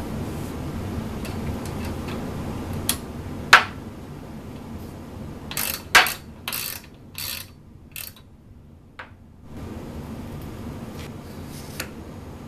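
Hand ratchet wrench being worked on the bolts of a ball-screw end mount: a couple of sharp metal clicks, then a run of short ratcheting bursts a little past the middle.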